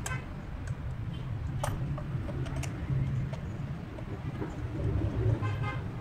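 Ratchet on a long extension and 14 mm deep socket working a spark plug out of its well, with scattered, irregular metallic clicks. Under it runs a steady low rumble, and a short horn-like tone sounds near the end.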